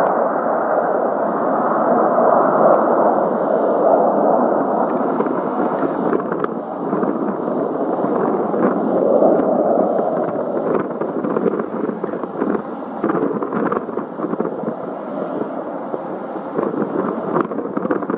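Aircraft engine noise at high power: a loud rushing rumble with sharp crackles through it, easing off somewhat over the second half.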